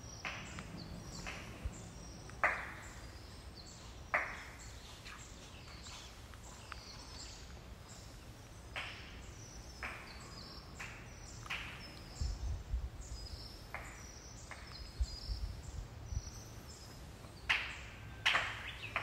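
Quiet outdoor ambience broken by short, sharp crunching or clacking sounds at irregular intervals, about a dozen in all, with a few low thuds in the middle.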